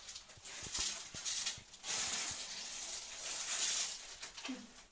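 Gift-wrapping paper and a large printed paper sheet rustling and crinkling in surges as they are pulled open and spread out.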